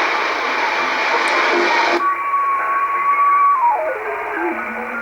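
Shortwave receiver audio: for about two seconds a station comes through with heavy static, then the sound abruptly narrows and a steady whistle sounds. Later the whistle drops in pitch in small steps to a low tone, the beat note of a carrier as the receiver is tuned across a station.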